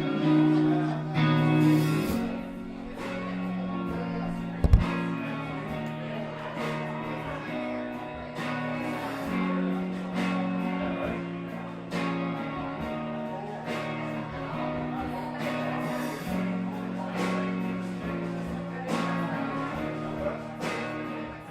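Guitar strummed in a steady rhythm during a live song performance, with the chords changing every second or two.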